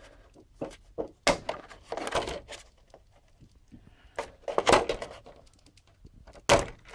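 A stiff white cover sheet lying over a power amplifier's boards being lifted and bent back by hand, rustling and crackling in several bursts, with a few sharp knocks.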